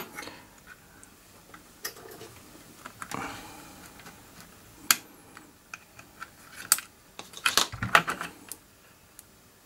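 Scattered small clicks and taps of multimeter probe tips and a coin-cell CMOS battery being handled on a motherboard, with light rustling between them; a quicker run of clicks comes near the end.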